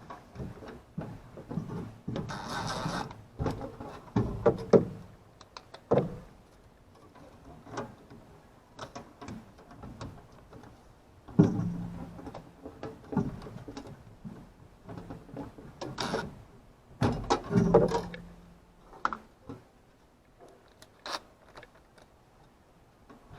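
Irregular handling noises: clicks, knocks and scrapes of hard objects being moved and worked, coming in clusters with quieter pauses between.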